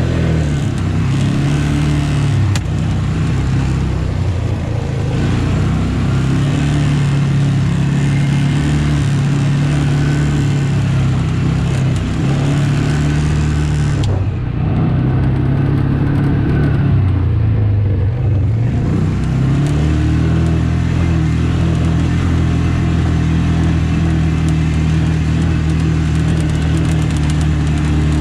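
Tractor diesel engine running steadily under load, its speed dropping for several seconds around the middle and rising back up about 19 seconds in.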